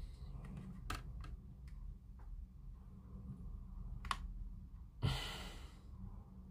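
Light clicks and taps of plastic parts being pressed into place on an Airfix B-17G kit, scattered through the first four seconds. A breathy exhale about five seconds in is the loudest sound.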